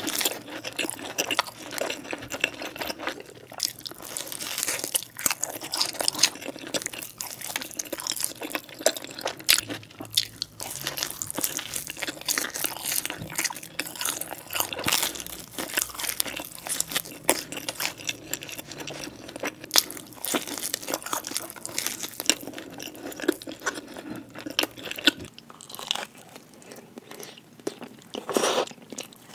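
Close-miked chewing and biting of pepperoni pizza, the crust crunching in quick, irregular clicks between bites. The crunching gets quieter about 25 seconds in, with one louder bite near the end.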